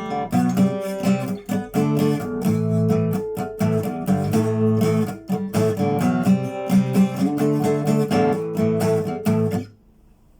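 Soviet Lunacharsky-factory Ovation-style acoustic guitar with a solid spruce-type top being played, a steady run of strummed and plucked chords; the playing is damped and stops sharply near the end.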